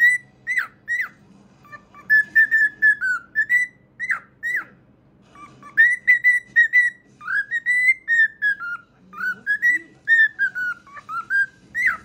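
Cockatiel whistling a tune: phrases of clear whistled notes, some held and gently falling in pitch, others quick up-and-down slides, with short pauses between phrases.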